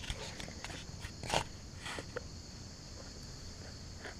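Steady high chirring of insects, with a few brief knocks about a second in and again near two seconds.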